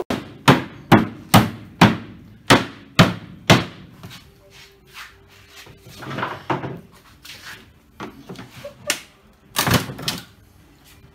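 Rubber-headed mallet knocking on a composite aircraft fuselage mould to free the painted fuselage inside. Sharp knocks come about two a second for the first few seconds, then softer, scattered knocks and bumps as the part is worked loose, with a louder cluster near the end.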